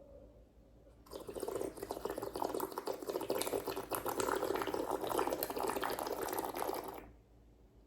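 Continuous wet gurgling and bubbling of liquid, lasting about six seconds. It starts about a second in and stops suddenly near the end.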